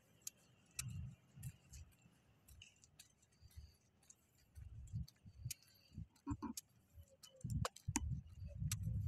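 Low, irregular thumps and rumble from the moving microphone, about two a second at first and turning into a denser rumble near the end, with scattered light clicks over the top.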